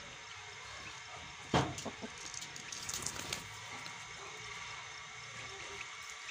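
Quiet outdoor background with one dull thump about a second and a half in, followed by a scatter of light clicks and taps for a couple of seconds.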